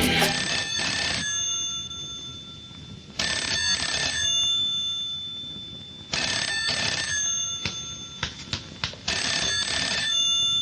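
Telephone ringing in a double-ring pattern, four rings about three seconds apart, with a few short clicks between the last two.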